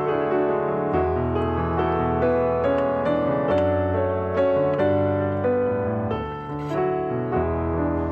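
Background piano music with sustained notes and chords changing every second or so.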